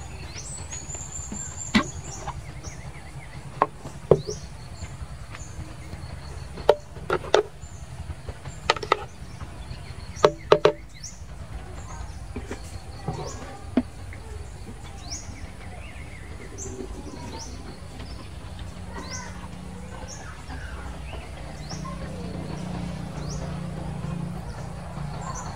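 Plastic blender jar and its lid clicking and knocking against a wooden floor as the lid comes off and the jar is handled, about a dozen sharp knocks mostly in the first half. Birds chirp throughout in the background, with short rising calls.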